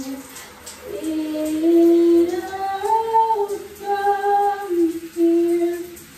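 A woman singing alone without accompaniment, in a slow melody of long held notes, in a small tiled bathroom.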